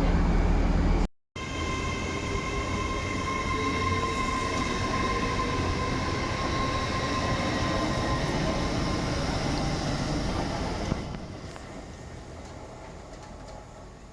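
Train running past: a loud low rumble for about a second, then, after a short break, a steady high whine with several held tones over the running noise, fading away about eleven seconds in.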